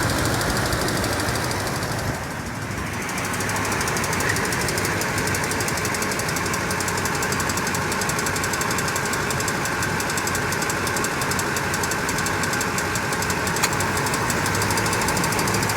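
2007 Toyota Tundra's 5.7-litre V8 running warm with a rapid, steady ticking on top of the engine sound. The tick came on around 170,000 miles, shows only after warm-up, is loudest on the driver's side, and keeps time with engine speed.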